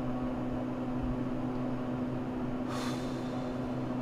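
Elevator car running: a steady hum with one strong held tone, and a short breathy hiss about three seconds in.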